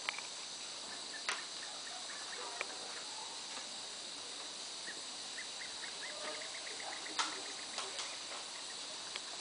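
A steady high insect chorus runs throughout, with a few sharp cracks and snaps of bamboo as an orangutan feeds on the stems, the loudest about a second in and again near the end. A quick, even run of short chirps comes in the middle.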